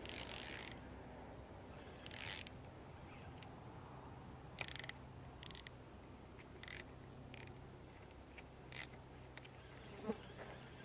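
Spinning reel being cranked in short bursts, about seven turns of a fraction of a second each, one to two seconds apart, with a light whine in each. A single sharp knock comes near the end.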